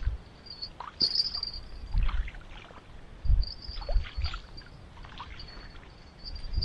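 River water lapping and splashing irregularly, with dull low knocks every second or so, over a thin, steady high chirring in the background.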